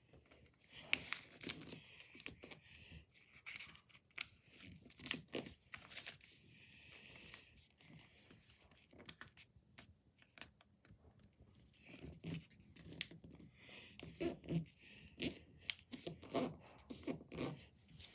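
Sheet of paper rustling and crinkling as it is handled and folded, with irregular short crackles as creases are pressed down.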